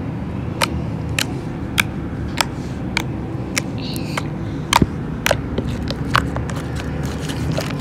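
Homemade slime being squeezed and poked by hand, giving sharp wet clicks and pops about twice a second.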